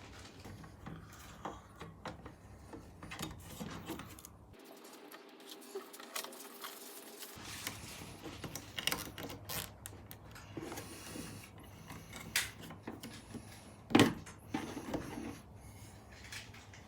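Scattered light clicks and knocks as the roller door opener's parts and cable are handled, with one sharp knock about fourteen seconds in.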